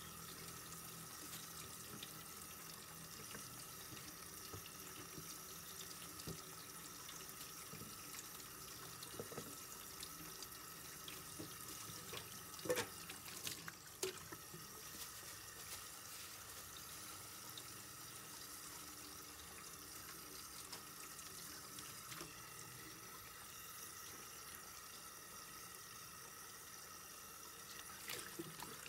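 Tap water running steadily into a stainless steel kitchen sink as fish is rinsed under it, with a couple of short knocks about halfway through.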